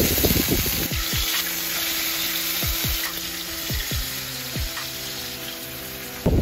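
Marinated meat sizzling in hot oil in a frying pan as pieces are laid in and shifted with tongs. The sizzle is loudest in the first second and settles to a steady hiss.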